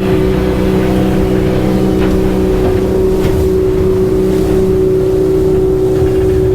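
Yamaha outboard on a Bar Crusher 730HT fishing boat running under way at a steady speed: an even engine drone over a rushing low rumble of hull and water.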